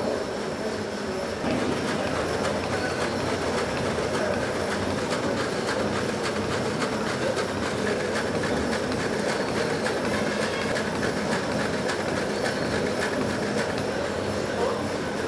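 Steam engine of a scoop-wheel drainage pumping station running: a steady mechanical clatter, with many small knocks from the turning crank and valve gear.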